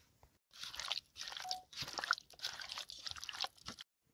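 Crunching and rustling handling noises of food being prepared, in dense irregular bursts that break off abruptly twice.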